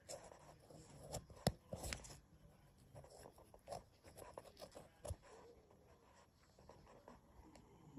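Faint rustling and handling of an insulin pen and its pen needle held close to the microphone, with a few sharp clicks, the loudest about a second and a half in.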